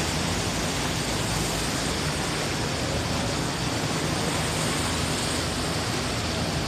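Steady rushing rumble of a boat under way: engine drone and water wash, with wind on the microphone.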